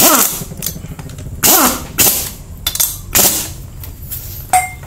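Electric drill spinning an old valve ground into a cutter inside a motorcycle cylinder head's valve pocket, cutting the pocket deeper so the valve clears the piston. It runs in three short bursts about a second and a half apart, the pitch falling in each.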